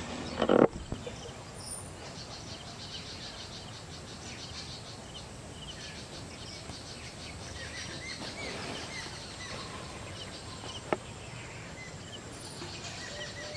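Outdoor pondside ambience: birds chirping over a steady hiss, with faint high insect-like chirring. A short loud thump comes about half a second in, and a single sharp click after about eleven seconds.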